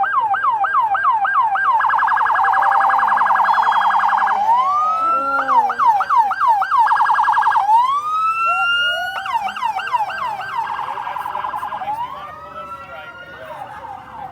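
Electronic emergency-vehicle siren cycling through its tones: a yelp of falling sweeps about three a second, a rapid warble, then a rising wail, repeated several times and getting quieter near the end.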